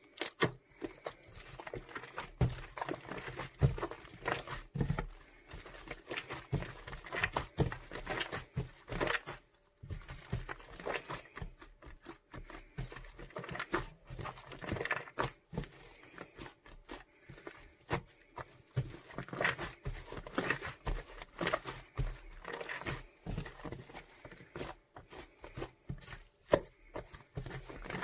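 Shaving foam being worked by hand, giving a dense, irregular crackling and squishing.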